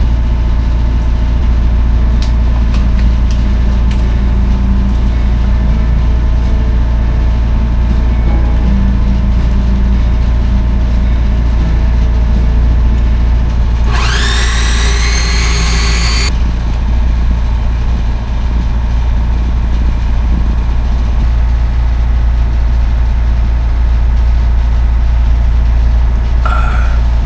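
A sailboat's inboard engine running steadily as the boat motors in calm conditions. About halfway through, a blender whirs up with a rising pitch for a couple of seconds, blending a fruit smoothie, then stops suddenly.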